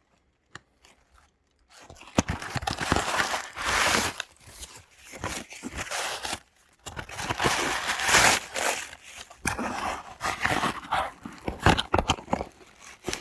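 Plastic packaging crinkling and rustling as boxed items are handled and unwrapped, with scattered clicks and knocks. It is near silent for the first second or two before the handling starts.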